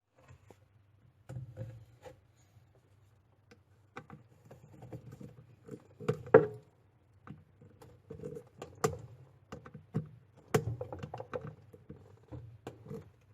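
Washing machine running with irregular knocks and rattles over a faint low motor hum: the strange noise the machine is making.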